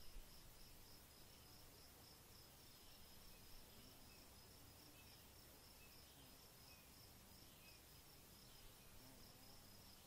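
Faint, steady insect chirping: a high, even chirp repeating about three times a second over a low background hiss.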